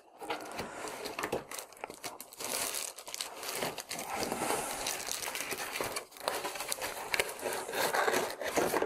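Packaging crinkling and rustling as a keyboard box is opened and its contents are lifted out, with small irregular clicks and scrapes.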